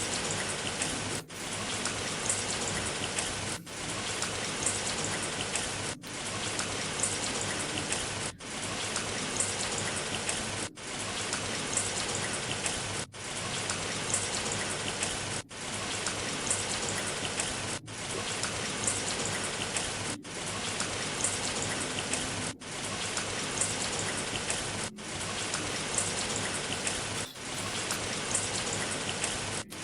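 Rain falling, a steady hiss with the patter of drops. The sound dips briefly at even intervals, about every two and a half seconds.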